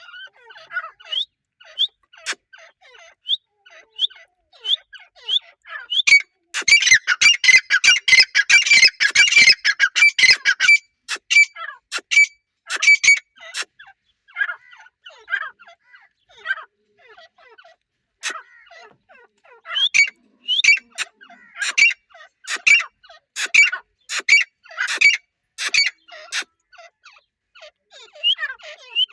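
A family group of grey francolins calling: many short, squawking chirps, swelling into a loud, dense chorus of overlapping calls about six seconds in that lasts some five seconds, then scattered calls again with sharp clicks.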